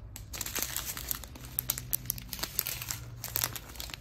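Small clear plastic bags of diamond painting drills crinkling as they are handled and turned over, with dense irregular crackles.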